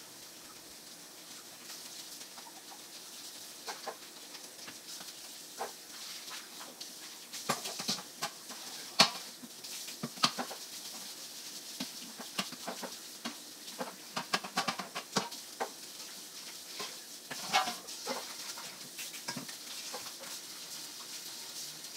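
Kitchen tap running into the sink during hand dish-washing, with irregular clinks and knocks of pans, lids and dishes being handled. The sharpest clatters come around the middle.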